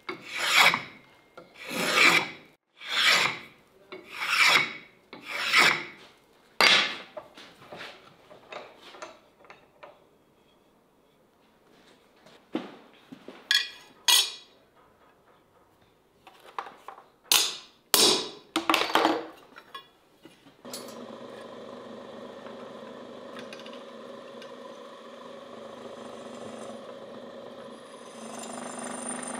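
Rhythmic rasping strokes, about one every 0.7 seconds, that thin out into a few scattered strokes after about seven seconds. About twenty seconds in, a steady machine hum with a held tone starts and grows slightly louder near the end.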